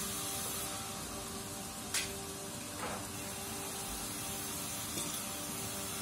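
Band sawmill machinery running with a steady hiss and hum, the saw not cutting. A sharp knock about two seconds in and a softer thud just under a second later.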